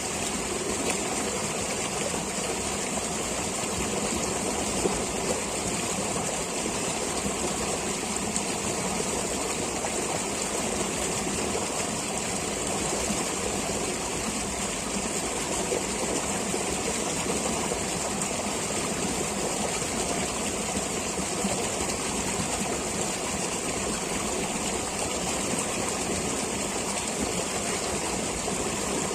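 Flowing stream water, a steady rushing and babbling.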